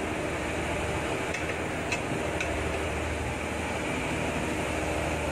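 Steady drone of the fishing boat's machinery, with a few light clicks of a metal ladle against a large aluminium rice pot as the rice is stirred.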